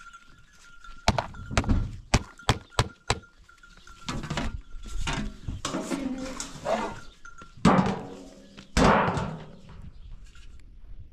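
Irregular sharp thunks and knocks: a quick run of about six within two seconds, then two louder ones later on.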